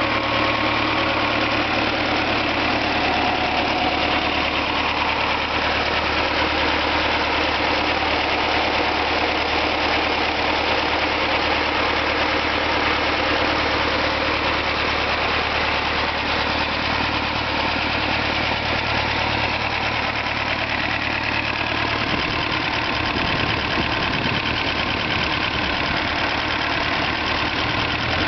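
D-144 air-cooled four-cylinder diesel engine running steadily after start-up. About twenty-two seconds in, its low, even hum turns uneven.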